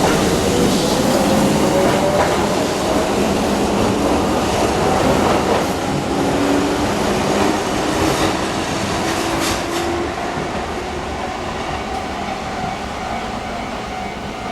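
Keihan 10000-series electric train pulling away, its traction motors whining and rising slowly in pitch as it gathers speed. The wheels click a few times over rail joints, and the sound fades gradually as it moves off.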